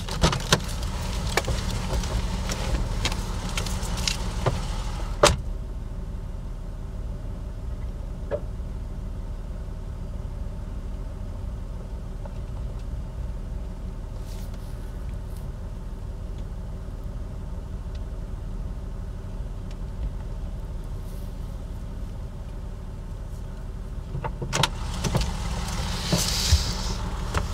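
Inside a car's cabin: a steady low hum, with clicks and rustling over the first few seconds and a car door shutting with a sharp knock about five seconds in. Near the end comes a louder rushing noise.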